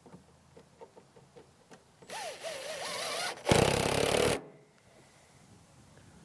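Cordless drill driving a screw into a board: about two seconds in, a motor whine that climbs in pitch, then a louder, harsher stretch of about a second that stops abruptly.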